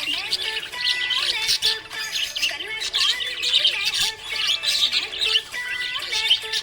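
Budgerigar chattering: a continuous stream of quick chirps, squawks and warbles, with a simple melody playing underneath.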